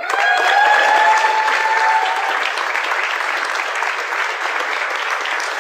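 Crowd applauding, breaking out suddenly and then clapping steadily. A single held high note rides over the clapping for the first two seconds.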